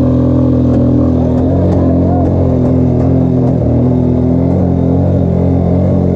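ATV engine running at a steady pitch, with a brief dip in revs about three and a half seconds in.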